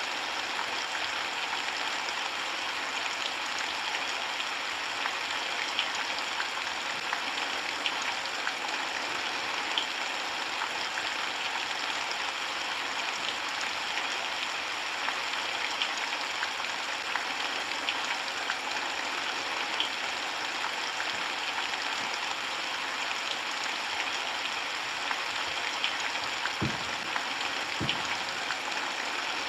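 Steady rainfall, a constant hiss sprinkled with scattered drip ticks. Two dull low thuds sound near the end.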